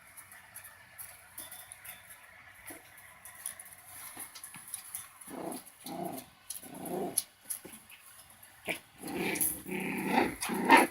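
Five-week-old puppies making small growls and whines: three short calls about halfway through, then louder, denser calls near the end, with faint scratchy clicks in between.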